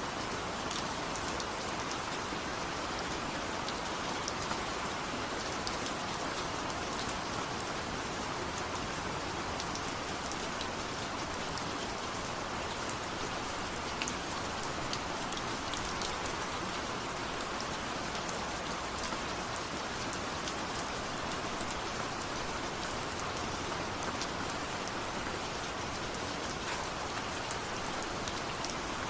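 Steady rain falling, an even hiss of rainfall with scattered individual drops ticking sharply.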